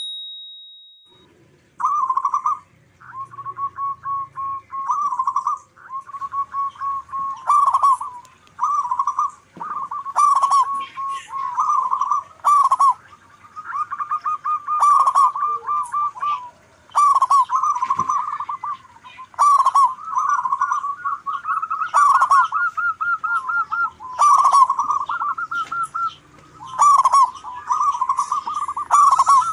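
Zebra doves (perkutut) singing their trilled cooing song, phrase after phrase, one bird answering another. Short high chirps recur every second or two. A brief high ding sounds at the very start.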